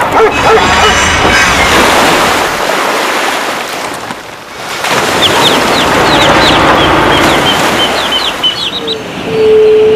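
Birds calling in a dense, busy mix, with quick high chirps in the second half and one steady held tone near the end.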